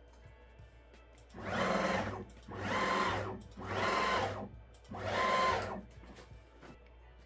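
Stepper motors of a Genmitsu PROVerXL 4030 V2 desktop CNC router jogging an axis along its lead screw in four separate moves of about a second each. Each move whines up and winds down with a steady high tone, and the moves spread freshly applied dry lube along the lead screws.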